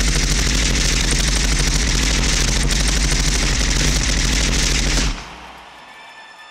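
Staged machine-gun fire sound effect played loud over a concert sound system: a rapid, unbroken volley that cuts off about five seconds in, leaving a quieter tail with faint sustained tones.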